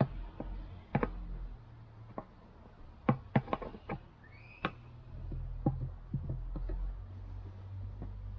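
Irregular knocks and clicks from handling tools and a plastic coolant expansion tank during plastic-welding repair work, with a quick cluster about three seconds in, over a low steady hum.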